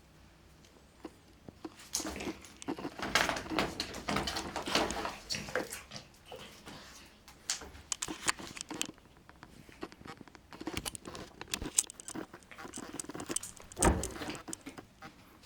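Cats' paws pattering, scrabbling and tapping on a hard floor in irregular flurries, with a heavier thump near the end.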